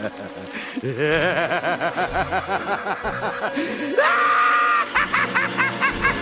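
A maniacal villain's laugh: a wavering cackle that climbs into a high-pitched shriek about four seconds in, then breaks into quick, rhythmic 'ha-ha-ha' bursts.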